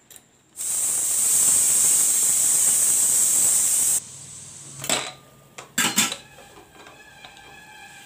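Pressure cooker venting steam: a loud, steady hiss for about three seconds that cuts off sharply, with the pressure being released through the vent under the weight. Then come a few metal clanks as the cooker's lid is handled.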